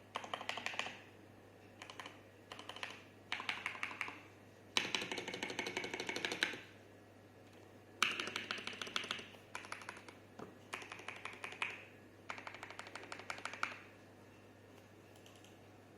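Mechanical keyboard being typed on: an MK870 kit with stock Gateron Brown tactile switches and ABS SA-profile keycaps, clacking in quick runs of keystrokes with short pauses between. The longest, densest run comes about five seconds in, and the typing trails off a couple of seconds before the end.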